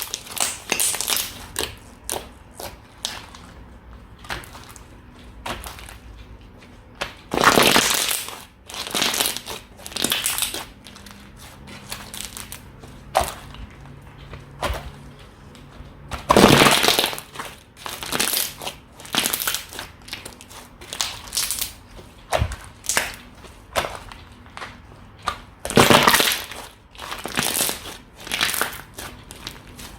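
Slime being squeezed and pressed by hand, giving uneven crackling, squishing bursts, several of them much louder, at about eight, sixteen and twenty-six seconds in.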